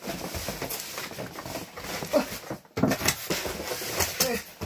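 Cardboard boxes scraping and rubbing against each other as a boxed folding table is pulled out of a shipping carton, with a few short voice-like sounds partway through.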